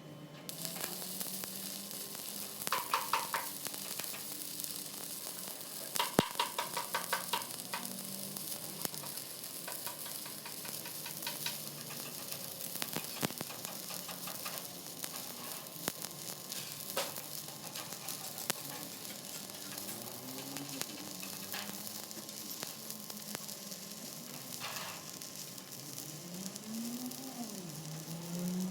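Electric welding arc crackling and sizzling steadily as a vertical-up (3G) weld is run.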